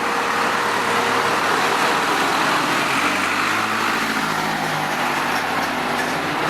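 Loud, steady vehicle noise, a continuous rush with a low engine hum joining about halfway through.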